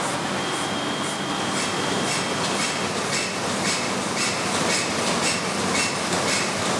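Printing press running in a print works: a steady mechanical rumble with an even clacking about two to three times a second and a faint high whine.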